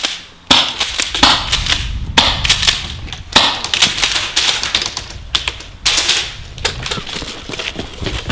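Airsoft guns firing on full auto: a fast, clicking rattle in several bursts separated by short pauses.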